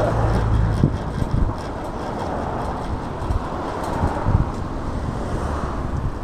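Wind buffeting the microphone: a steady low rumble with a broad outdoor hiss.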